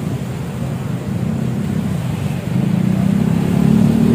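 Vehicle engine running, growing louder and slightly higher about two and a half seconds in as it picks up speed.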